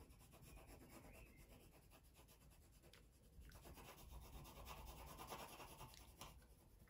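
Faint rubbing of a pencil shading on paper as an area of a drawing is coloured in, a little louder in the second half.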